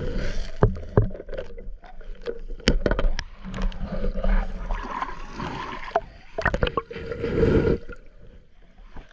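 Muffled underwater water noise as a camera is held over a cobble lakebed, surging in and out with scattered sharp clicks and knocks, then easing off near the end.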